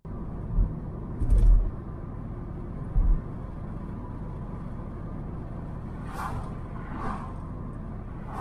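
Road noise inside a moving car: a steady low rumble with a few low thumps in the first three seconds. Two vehicles pass by in a couple of short swishes near the end.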